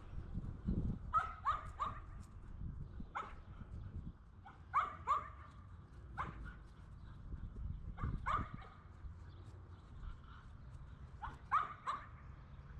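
A dog yipping: short, sharp barks, singly or two or three in quick succession, every second or two.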